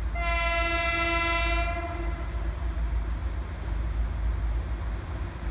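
Train horn sounding one steady, single-pitched blast of about two seconds that cuts off, over a continuous low rumble.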